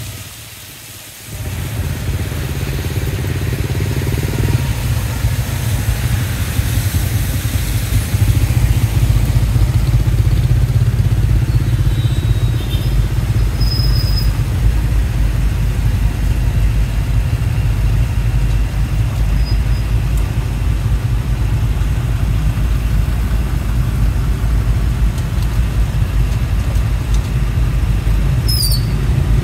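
Steady low rumble of a tuk-tuk's motorcycle engine and surrounding traffic on a wet street, heard from the open carriage. The sound drops briefly about a second in, and a short high squeal comes near the end.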